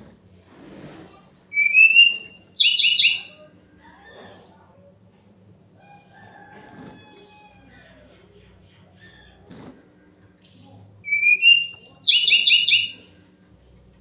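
Sikatan rimba dada coklat (jungle flycatcher) song: two loud phrases about ten seconds apart, each a short rising whistle followed by a quick run of repeated high trilled notes. Soft chirps and light knocks come in the gaps between them.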